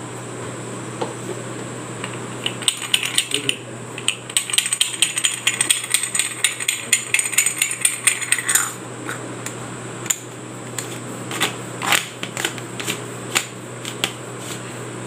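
Brass murukku press being handled as it is filled with dough and assembled: a dense run of quick metallic clicks and scrapes lasting several seconds, typical of the threaded brass top being screwed on, then a few scattered knocks and clicks.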